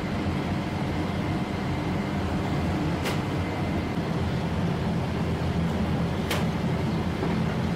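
Steady low hum of a mechanised rotary flatbread oven with a turning steel hearth, with two sharp clicks about three seconds apart.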